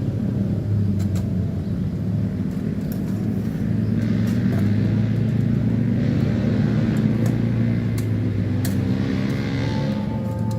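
An engine running steadily at an even low pitch, with a few faint clicks.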